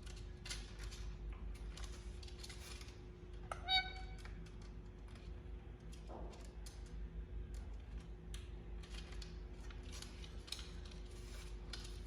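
Faint, irregular clicks and scratches, and about four seconds in one short squeaky call from an Indian ringneck parrot.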